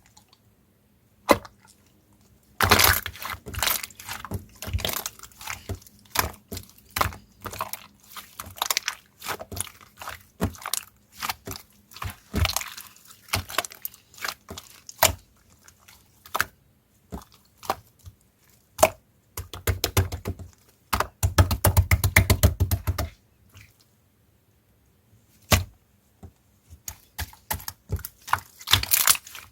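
Blue slime being squished and pressed by hand, giving sticky clicks and small air-bubble pops, with a quick run of rapid popping about two-thirds of the way through.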